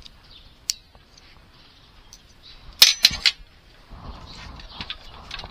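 Small hand tools being handled: a single click, then a quick run of three sharp clicks from a screwdriver and its bits about three seconds in, followed by faint rustling and a low bump as a hand reaches across the work.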